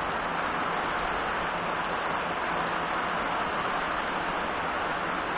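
Heavy tropical downpour: a steady, even hiss of rain falling on a paved road, grass and palm foliage, with no breaks or single drops standing out.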